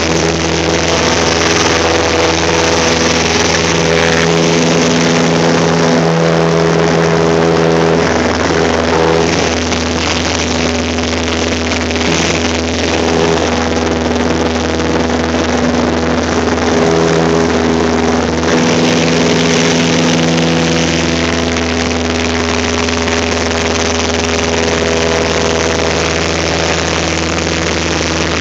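Cessna 172's piston engine and propeller running at full climb power after takeoff, heard from inside the cockpit as a steady, loud drone with wind rush.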